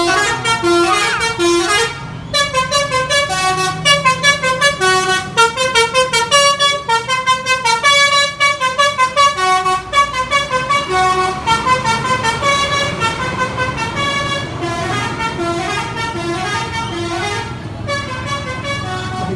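Basuri 'telolet' bus horn, a multi-tone musical air horn, playing a fast tune of short tooting notes over the bus's low engine rumble. There is a brief break about two seconds in, and the notes grow softer in the last few seconds.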